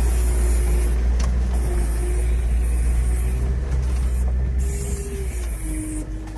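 Veter all-terrain vehicle's engine and drivetrain running under load as it crawls slowly uphill, with a steady low drone and a thin whine that drops in pitch about five seconds in.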